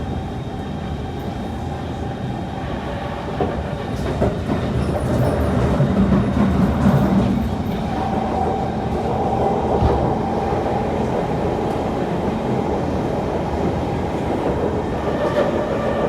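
Kawasaki C151 metro train running, heard from inside the car, its wheels clattering over a track crossover with a louder stretch of rattling about four to eight seconds in. Steady whining tones from the traction equipment sound over the rumble.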